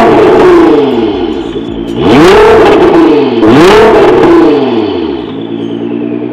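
Nissan GT-R R35's twin-turbo V6 revved through an Armytrix turbo-back exhaust with its valves open. Three quick throttle blips: one right at the start, then two more about two and three and a half seconds in. The pitch rises and falls with each, and the engine settles back to a steady idle near the end.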